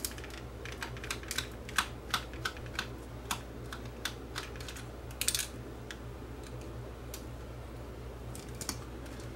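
Irregular light clicks and taps of small plastic parts and screws being handled as a clock's projector module is unscrewed and worked loose from its plastic housing, thickest in the first half, over a steady low hum.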